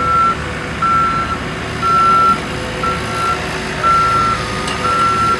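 Skid steer back-up alarm beeping about once a second, each beep one steady tone, over the machine's engine running.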